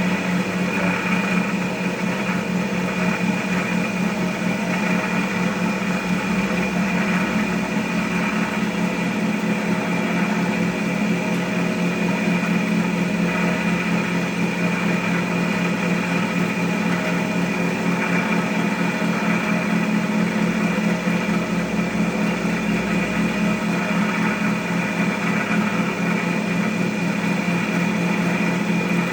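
Cotton candy machine running steadily, its motor spinning the heated sugar head as the sugar melts and spins out into floss. A constant, unchanging hum.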